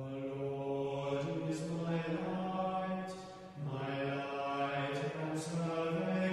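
Slow, chant-like singing with long held notes and a short pause about three and a half seconds in.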